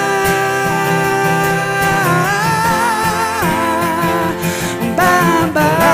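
Live country song: a man sings long, drawn-out wordless notes over an acoustic guitar, the melody sliding between held pitches.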